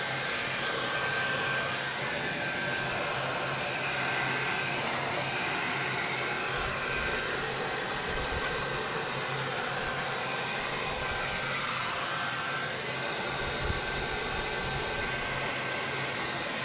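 Hand-held hair dryer blowing steadily, with a thin high motor whine over the rush of air, drying freshly brushed liquid latex.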